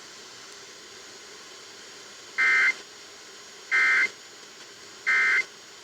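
Emergency Alert System end-of-message signal: three short, identical bursts of warbling digital data tones, about a second and a half apart, over a steady broadcast hiss. It marks the end of the alert message.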